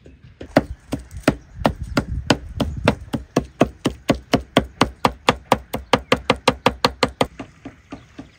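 A large knife chopping raw meat and fat on a wooden board, hand-mincing it in rapid, steady strokes of about four to five a second that stop about seven seconds in.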